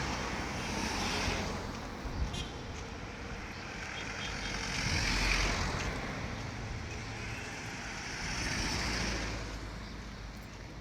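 Road traffic: vehicles passing one after another, the noise swelling and fading three times.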